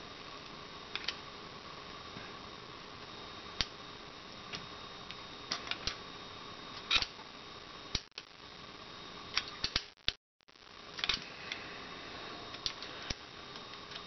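Small irregular metal clicks and taps of a screwdriver prying and tilting the hammer spring plate into a Beretta 21A Bobcat frame, over a steady hiss. The sound cuts out briefly about ten seconds in.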